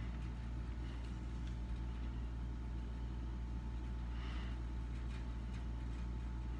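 Steady low background hum. A faint brush stroke on paper comes about four seconds in.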